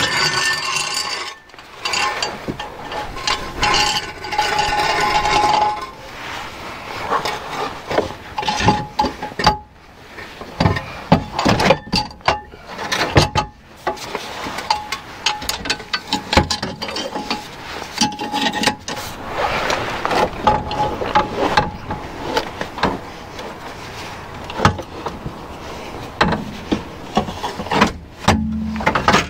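New steel exhaust backbox and pipe on a Vauxhall Corsa D clanking, knocking and scraping against the car's underside as it is worked up and over the rear axle into place, in irregular metallic knocks and clinks.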